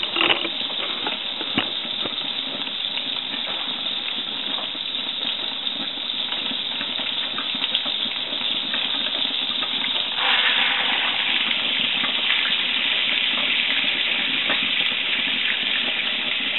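Melted butter sizzling in a frying pan with scattered small crackles. About ten seconds in, a floured fish fillet is laid into the hot butter and the sizzling turns suddenly louder and stays so.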